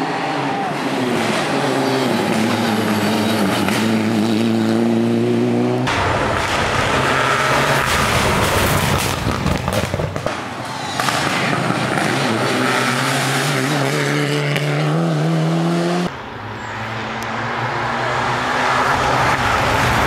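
Rally cars at full throttle on a tarmac special stage, engines revving hard with the pitch climbing and stepping back at each gear change as they pass. The sound changes abruptly about six and sixteen seconds in, giving three separate passes. The middle one is the loudest, with tyre noise mixed in.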